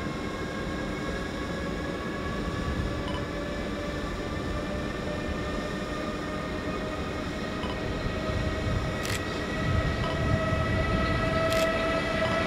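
Electric train in a station, its motors giving a steady whine of several tones that rise slowly in pitch, with a couple of sharp clicks of wheels over the rails near the end.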